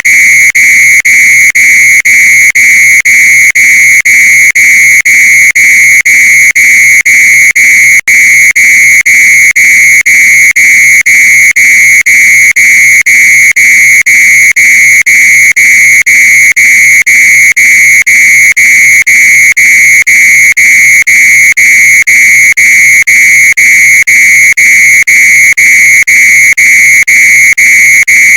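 Fire alarm sounding: a loud, high-pitched steady tone in quick, evenly spaced beeps with only short gaps between them. There is one brief dropout about eight seconds in.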